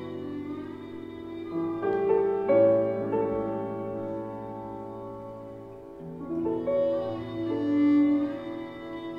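Live improvised instrumental music: slow, held notes that move to new pitches every second or two, swelling louder about three seconds in and again near the end.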